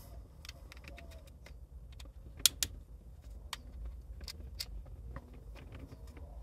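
Small clear plastic case of a micro SD card being handled and opened: scattered light clicks and taps, with two sharper clicks about two and a half seconds in.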